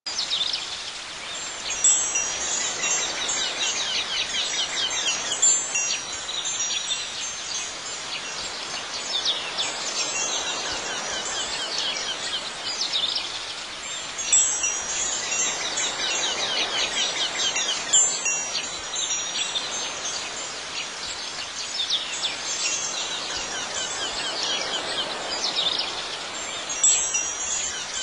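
Wind chimes ringing over a steady bed of outdoor ambience, with a few brighter chime strikes. The same pattern comes round again about every 12 seconds, like a looped ambient soundtrack.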